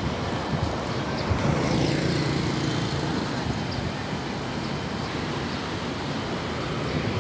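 Steady city street traffic noise. One vehicle's engine hum stands out briefly about two seconds in.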